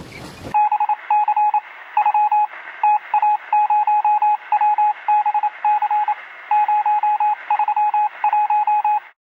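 Morse code: a single-pitch electronic beep keyed rapidly in short and long pulses with gaps between groups, in a thin, radio-like tone. It starts about half a second in and cuts off just before the end.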